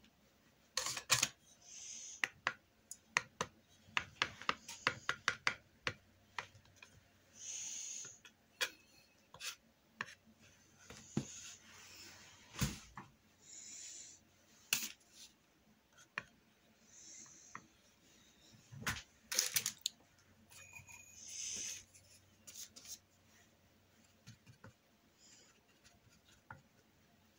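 A paintbrush working acrylic paint: short brushing strokes mixed with sharp taps and dabs, including a quick run of taps a few seconds in.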